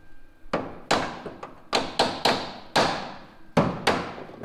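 Hammer blows on the metal underside of a VW T3 bus, about eight sharp, irregularly spaced strikes, each ringing briefly. They are knocking at suspension bolts rusted into their bushings.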